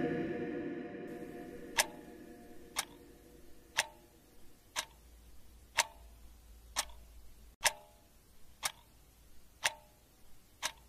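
Clock ticking about once a second, each tick a sharp click with a short ring. A low rumble fades away over the first two seconds.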